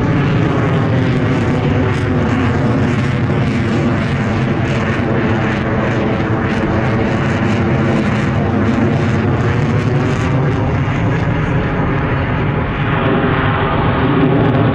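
Aircraft flying overhead: loud, steady engine noise with a slowly sweeping, phasing tone as the plane passes.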